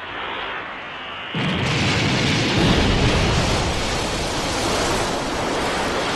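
Cartoon explosion sound effect: a rushing hiss that jumps about a second and a half in to a loud, sustained blast of noise with strong bass, slowly easing off.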